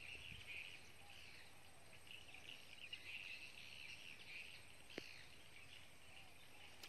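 Near silence with faint, continuous high chirping of insects and birds, and a single faint click about five seconds in.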